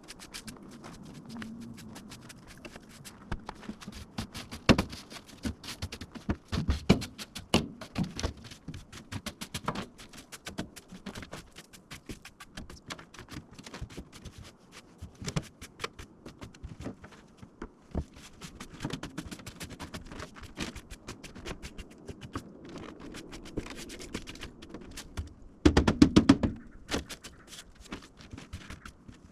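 Hands handling tools and small parts: irregular clicks, clinks and knocks with some rustling, and a louder burst of rattling near the end.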